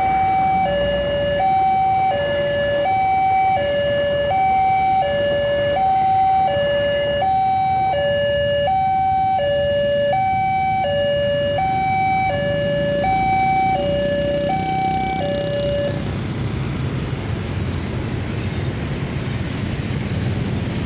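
Railway level-crossing warning alarm sounding its two-tone signal, alternating a higher and a lower note about every three quarters of a second, then cutting off about 16 seconds in. After it stops, motorcycle and car engines grow louder as traffic moves off.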